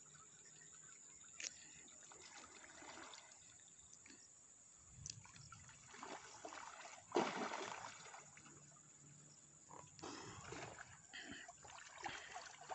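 Faint water sloshing and splashing as a person swims and wades through a shallow river, with one louder burst about seven seconds in.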